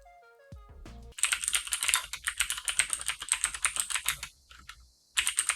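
Fast typing on a Cherry MX Board 3.0S TKL mechanical keyboard with Cherry MX Blue clicky switches in an all-aluminium case: a rapid, dense stream of crisp key clicks. It is led in by a short run of descending musical tones in the first second, and it thins out and stops briefly before picking up again near the end.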